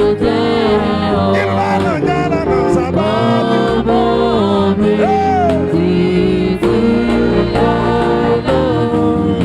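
Gospel worship song: voices singing over instrumental backing with bass notes and percussion.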